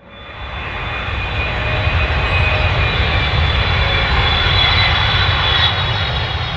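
Jet airliner engines running: a steady deep rumble under a high whine. It fades in over about the first second.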